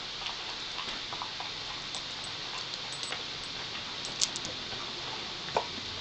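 Dog-training clicker giving two sharp clicks, a loud one about four seconds in and a lower one about a second and a half later, over light scattered ticking and taps.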